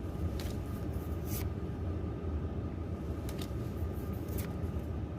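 Trading cards sliding against each other as a pack is flipped through, giving a few brief swishes, over a steady low rumble.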